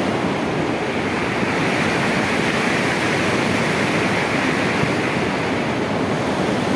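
Upper Ganges (Bhagirathi) river rushing: a loud, steady rush of fast-flowing water.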